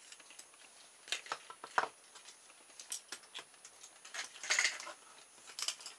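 Scattered light clicks and rustles of hands handling a small mousetrap car built from wooden barbecue skewers with CD wheels, with a longer, louder rustle about four and a half seconds in.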